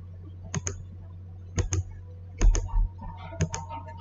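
Computer mouse clicks in quick press-and-release pairs, about one pair a second, as segments are selected for trimming in AutoCAD. A steady low hum runs underneath.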